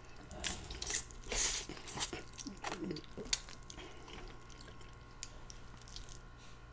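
A person slurping and chewing a big mouthful of black bean spicy noodles: a run of short wet slurps and mouth smacks over the first three seconds or so, with one sharp click among them, then only quiet chewing.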